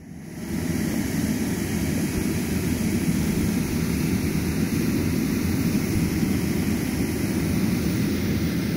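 Electric blower fan keeping an inflatable bouncy castle inflated, running steadily with a constant, low rushing drone.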